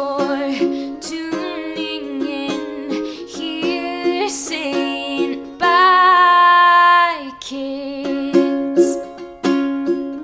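Background music made of plucked string notes, with one long held note about six seconds in.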